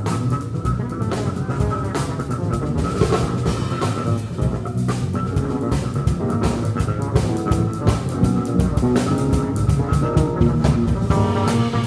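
Live jazz-fusion band playing: two electric bass guitars over a busy drum kit groove, with dense, rapid drum hits throughout.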